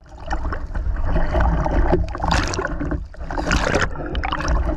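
Strong wind buffeting the microphone and choppy sea slapping and sloshing around a swimmer's head-mounted camera at the surface, with two louder splashing surges as waves wash over the lens.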